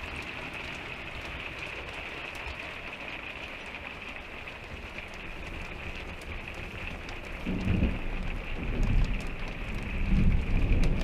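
Rain mixed with small hail falling steadily on the RV roof, heard from inside, a dense hiss of many small hits. Thunder rumbles low underneath from about two-thirds of the way through, loudest near the end.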